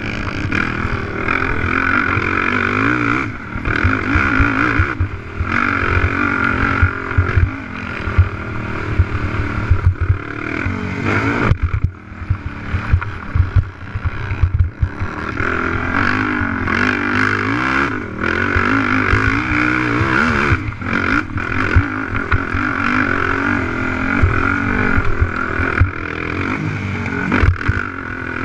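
Honda TRX450R race quad's single-cylinder four-stroke engine revving hard and falling off again and again as it is ridden flat out over rough sand, with wind buffeting and knocks from the bumps. The engine drops off briefly several times, most clearly about twelve seconds in.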